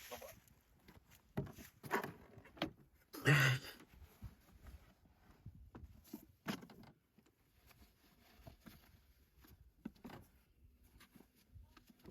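Scattered rustling, knocks and shuffling of people moving about and settling in inside a small van, with one louder sound about three seconds in.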